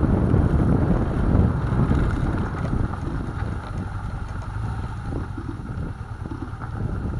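Wind buffeting the microphone over a BMW GS Adventure motorcycle running along a dirt track, a dense low rumble that is loudest for the first few seconds and then eases off.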